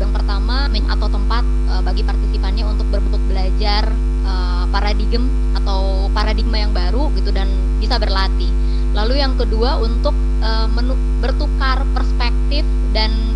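Loud, steady electrical mains hum on the video-call audio, with a person's voice talking faintly underneath it.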